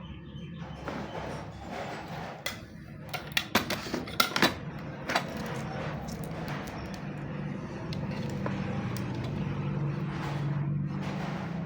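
A cluster of sharp clicks and taps from tools and the circuit board being handled during resoldering, over steady background noise with a low hum.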